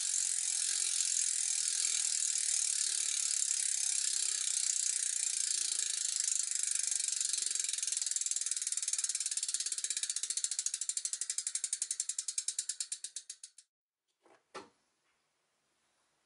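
Hope Pro 4 rear hub's freehub spun by hand, its pawls clicking in a fast ratcheting buzz that slows into separate clicks and stops about 13 seconds in. A short knock follows, and the freshly rebuilt freehub freewheels smoothly.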